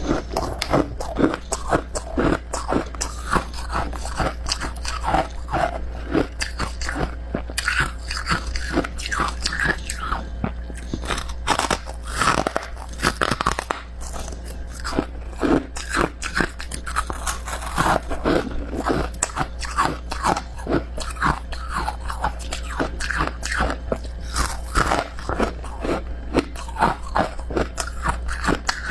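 Close-miked biting and chewing of soft, powdery freezer-frost ice: dense, irregular crunching, a few crunches a second, with a steady low hum underneath.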